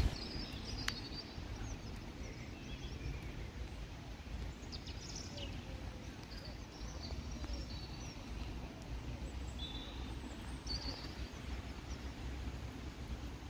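Songbirds chirping in short, scattered calls over a steady low outdoor rumble, with a single sharp click about a second in.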